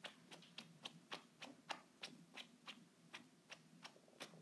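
A cat playing with a fabric toy on a hardwood floor: quick, faint clicks, about three or four a second.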